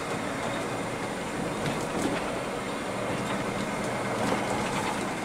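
Steady rumble of diesel bus engines running.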